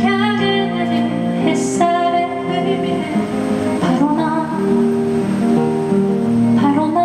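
Background music with plucked guitar and a sung melody line.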